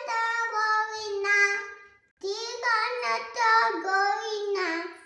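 A young girl's voice chanting a Hindu sloka in a sung, drawn-out tone. She sings two phrases with a short break about two seconds in, and the last note fades near the end.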